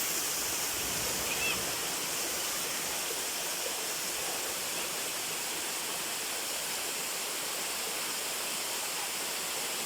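Natural spring water flowing strongly out of the ground, a steady even rush.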